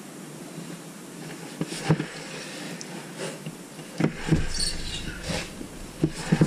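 Gloved hands handling a wet acrylic-pour canvas in a cardboard box, turning it on a lazy Susan and wiping paint off its edges. Scattered soft knocks and rustles start about a second and a half in and grow busier after about four seconds.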